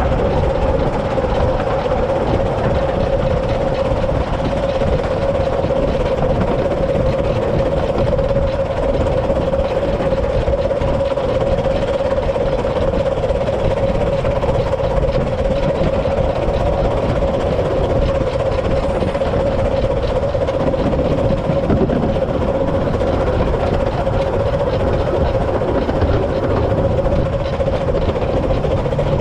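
River Mite, a 15-inch gauge 2-8-2 steam locomotive, running along the line as heard from the footplate: a steady running noise with a constant humming tone held throughout.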